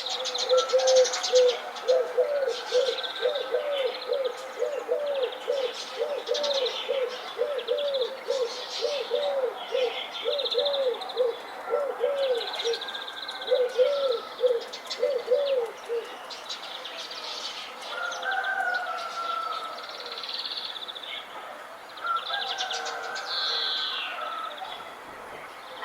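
Morning birdsong: a dove cooing in a run of short repeated notes that stops about two-thirds of the way through, over many small songbirds chirping and twittering throughout.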